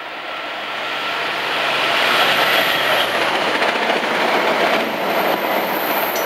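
VIA Rail diesel-hauled passenger train going past: a rushing rumble of locomotive and passenger car wheels on the rails that builds over the first two seconds, then holds steady as the coaches roll by.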